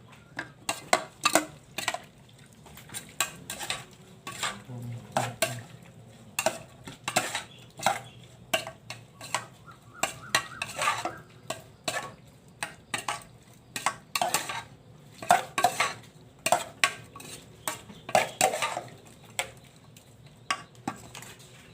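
A spoon clinking and scraping against a mixing bowl in quick, irregular strokes as the pork salad is tossed with its seasonings.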